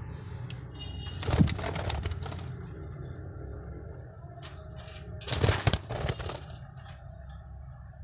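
Pet budgerigars flapping their wings in a wire cage: two bursts of flapping, each about a second long, one early and one just past the middle.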